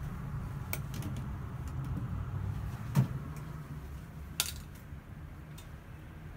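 A steady low rumble with a few light clicks, and a sharp knock about three seconds in, followed by another click about a second and a half later.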